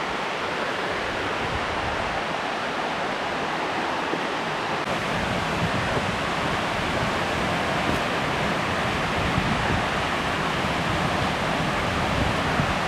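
Steady rushing of water tumbling down a mountain waterfall's cascades.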